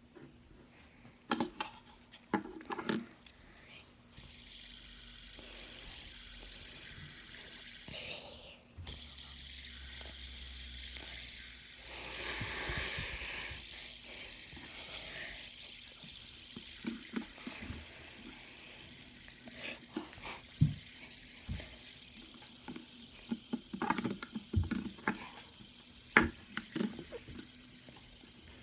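Fidget spinners whirring on their ball bearings as a steady high hiss that slowly fades, after a few clicks of being handled and flicked. Scattered sharp clicks and taps of handling come near the end.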